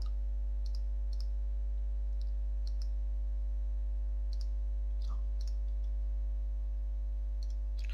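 Several scattered computer mouse clicks, spaced irregularly, over a steady electrical mains hum.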